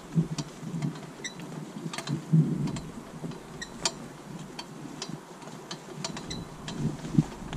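Standardbred horse and training cart on a dirt track: irregular dull thuds of hooves and wheels, with the cart's metal frame, chains and harness rattling and clicking.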